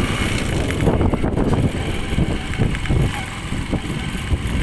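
Riding noise from a moving vehicle: a steady low rumble with gusty wind buffeting on the microphone.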